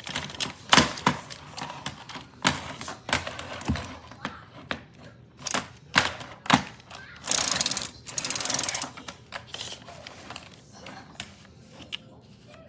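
Irregular clicks and knocks of something being handled, with two short hissing rushes a little past halfway.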